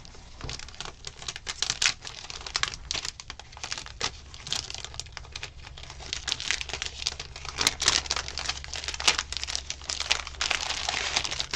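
A clear plastic cellophane sleeve crinkling and crackling as it is handled and smoothed flat. The crackles come irregularly throughout and grow busier in the second half.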